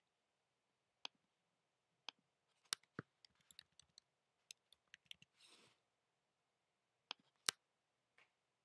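Faint computer mouse clicks and keyboard key taps: a few single clicks, then a quick run of taps as a word is typed about three to four seconds in, and two sharper clicks near the end.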